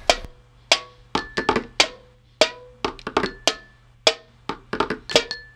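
Backing music of percussion alone: sharp drum strikes in an uneven rhythm, several leaving a short ringing tone.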